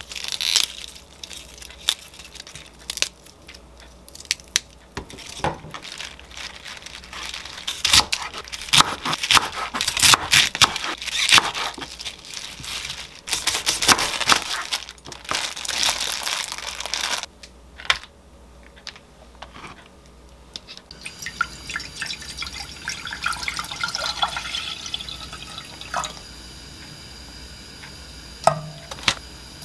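Kitchen prep sounds: bok choy leaves swished and dripping in a glass bowl of water, then a chef's knife chopping napa cabbage and enoki mushrooms on a wooden cutting board, with sharp knocks and plastic crinkling. Later a steady pour of liquid into a saucepan, with a few knocks near the end.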